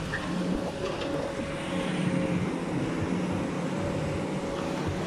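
Diesel engines of tracked hydraulic excavators running steadily on a demolition job, a continuous drone.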